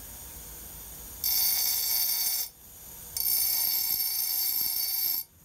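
Bench grinder wheel grinding the shoulders of a spade bit forged from a cobalt steel twist drill: two passes of high-pitched grinding, the first about a second in and the second from about three seconds in, each cut off sharply when the steel is lifted from the wheel. Between and before them only the grinder's low running hum is heard.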